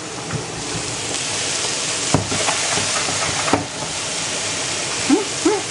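Meatballs sizzling steadily as they fry in a pan, with three sharp knocks spread through the sizzle. Near the end come a few brief, squeaky voice-like sounds.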